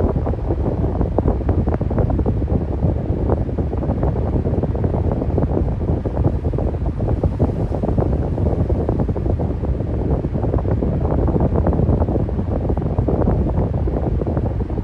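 Electric fan running steadily: an even, low rush of air with no change in level.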